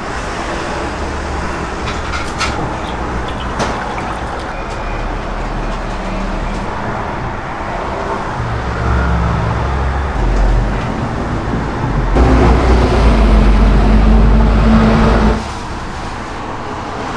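Steady low background rumble and noise, with a few faint clicks. It grows louder for about three seconds near the end and then cuts off sharply.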